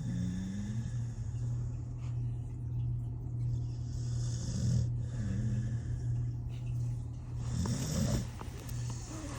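A 13-year-old pit bull snoring in his sleep: slow breaths, about one every three to four seconds, each drawn with a snore, over a steady low hum.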